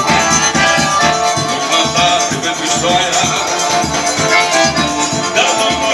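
Forró music playing loudly, with sustained melody notes over a quick, steady dance beat.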